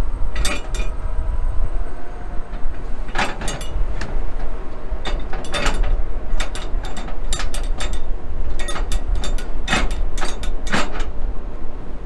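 Strong wind buffeting the microphone with a steady low rumble, while a flatbed cargo strap is pulled out from under a tarp, giving irregular clusters of sharp clicks and rattles from the strap and tarp being worked.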